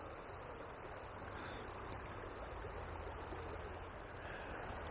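Steady rushing of a shallow river's current flowing around a person wading in it.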